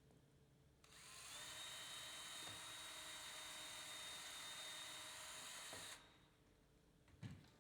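Electric drill running at a steady high speed for about five seconds while pre-drilling a pilot hole in a wooden screen cap. It spins up about a second in and stops abruptly, followed by a short knock near the end.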